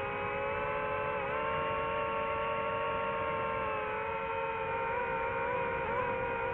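DJI FPV drone's motors and propellers whining steadily, their pitch shifting slightly up and down as the throttle changes.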